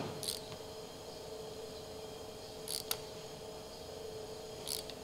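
A few faint, light metallic clicks of a feeler gauge and hand tools being handled while setting the rocker valve clearances on a Ford pre-Crossflow engine, over a steady hum.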